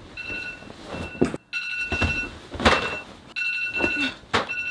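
Phone alarm tone going off, a pattern of high electronic beeps repeating without pause, with several sharp thumps over it.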